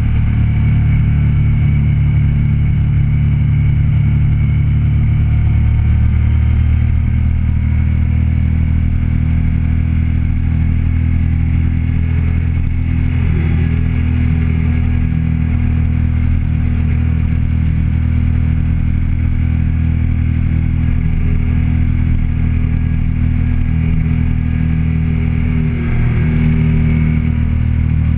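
Motorcycle engine running at a steady cruise while riding, its low note holding even, with a brief dip in level near the end.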